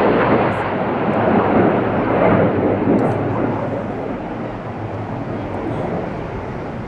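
Jet noise from the Red Arrows' BAE Hawk trainer jets flying past in formation, a steady rushing sound that is loudest in the first few seconds and then slowly fades as they pull away.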